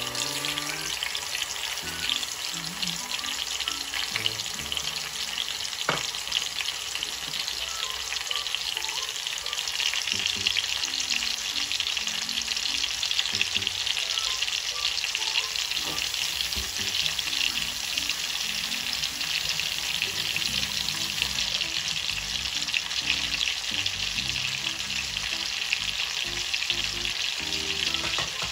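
Chicken pieces frying in hot oil in a steel frying pan: a steady crackling sizzle that grows denser and a little louder about a third of the way in.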